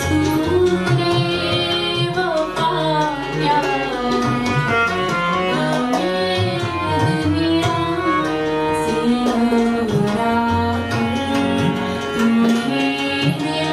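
Live South Asian vocal music: a woman singing to harmonium accompaniment, with tabla drums playing a rhythm of sharp strokes under the voice.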